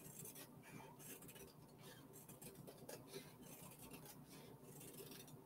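Faint snipping of scissors cutting through canvas fabric: a string of small, irregular clicks.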